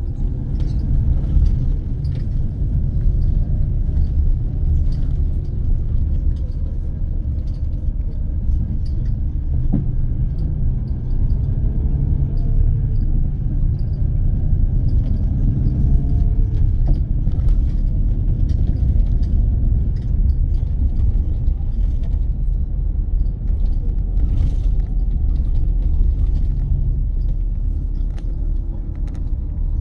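Steady low rumble of a double-decker bus in motion, heard from inside on the upper deck, with engine and road noise, a faint whine that rises and falls, and occasional light rattles.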